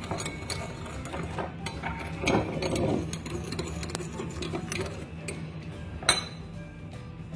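Metal spoon scraping and clinking against a glass bowl while stirring a thick powdered-sugar and milk glaze. A run of small clicks, with a louder stretch of scraping about two to three seconds in and one sharp clink about six seconds in.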